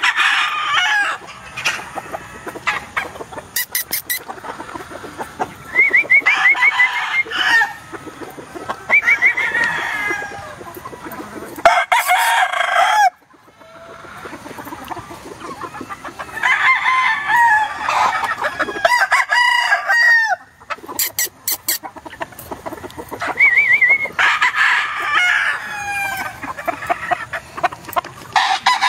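Gamefowl roosters crowing again and again, a crow every few seconds, sometimes overlapping, with clucking between the crows.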